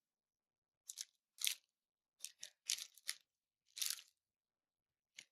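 Packaging being torn and pulled open by hand: a string of about ten brief, faint crinkles and rips with silent gaps between them.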